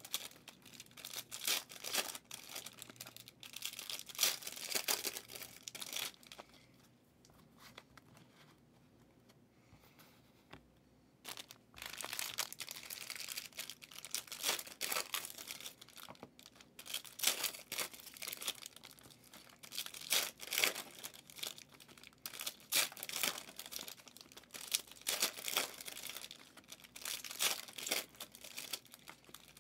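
Trading card pack wrappers being torn open and crinkled in quick succession as cards are pulled, with a lull of about five seconds partway through.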